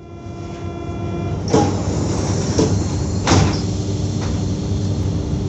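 SNCF Z2N double-deck electric multiple unit standing at a platform, its on-board equipment humming steadily. A whine of several tones stops about a second in. Several sharp knocks and clunks follow, the loudest about three seconds in.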